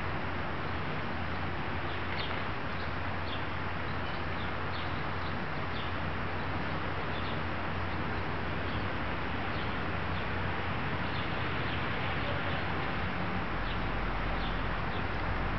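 Steady outdoor background hiss with faint, short, high bird chirps scattered through it every second or so.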